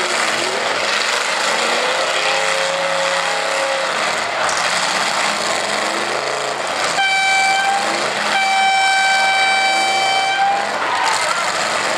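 A loud horn sounds two long blasts, the first about a second long and the second about two seconds, about seven seconds in, over the steady running of demolition-derby car engines. A fainter, lower tone slides slightly a couple of seconds in.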